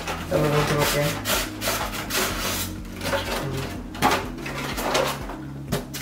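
Cardboard and foam packaging being handled: a white packaging insert is lifted off the boxed iMac, rubbing and scraping against the cardboard box and the protective cover, with a few sharp knocks.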